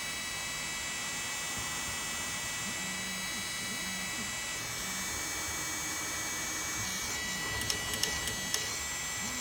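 Bambu A1 mini 3D printer giving off a steady high-pitched electrical whine and buzz instead of printing, a fault noise whose cause is unknown. A few sharp clicks come near the end.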